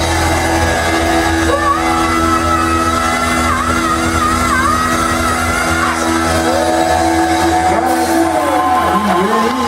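Live rock band playing in a large hall: sustained held chords under a wavering, bending lead melody line.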